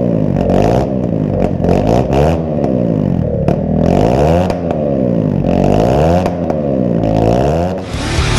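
Honda CBR125 single-cylinder four-stroke engine revved over and over, about once a second, through a salvaged aftermarket muffler. The pitch climbs and falls with each blip of the throttle.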